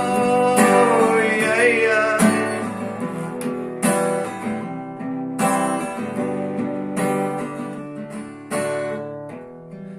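Acoustic guitar strummed between verses, one chord about every second and a half, getting quieter toward the end. In the first two seconds a held, wavering sung note trails off over the guitar.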